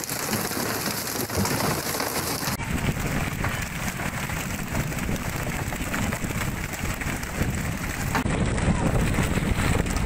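Steady noisy hiss and rumble of wind and sea water aboard a fishing boat at sea, with no clear single event; about two and a half seconds in the sound changes to a deeper, louder rumble.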